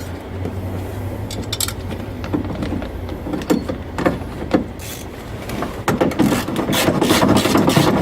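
Scattered clicks and knocks of a bracket and other parts being handled and fitted inside a car door, with a busier stretch of rattling and rustling near the end.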